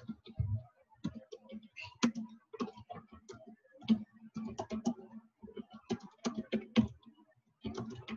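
Typing on a computer keyboard: quick, uneven runs of keystrokes with a brief pause or two.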